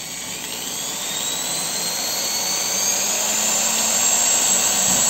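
Electric drill running continuously as its bit bores through a strip of cardboard, the motor whine rising in pitch over the first couple of seconds and growing steadily louder.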